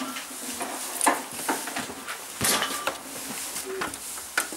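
Handling clatter: a few knocks and clicks as a halter with metal buckles is put away into a metal tack locker and its door is handled; a sharp knock about two and a half seconds in is the loudest.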